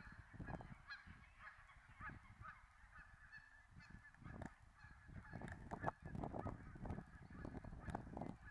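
A flock of geese honking and chattering faintly, many overlapping calls without a break. Irregular low rumbles come and go underneath and are the loudest part.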